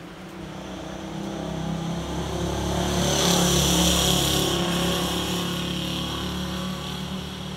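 A motor vehicle drives past on a wet road: its engine and tyre hiss swell to a peak about three to four seconds in, then fade away.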